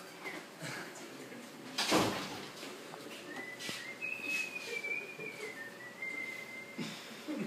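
A loud thump about two seconds in, then a person whistling one long wavering note for nearly four seconds, stepping up and then down in pitch.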